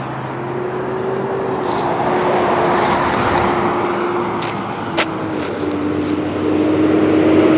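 Road traffic: a car passing on the road, its noise swelling about three seconds in and building again near the end, over a steady hum, with one sharp click about five seconds in.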